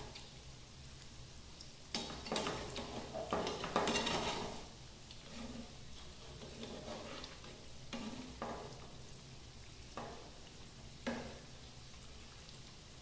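Grated-potato pakoras deep-frying in hot oil with a steady faint sizzle, while a metal slotted spoon stirs them and clatters against the frying pan, mostly about two to four seconds in and briefly again a few times later.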